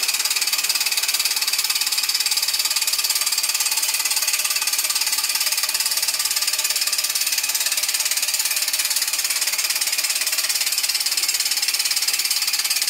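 Homemade model steam engine with a Mamod oscillating cylinder running fast on live steam: a rapid, even rattle of exhaust beats with steady steam hiss.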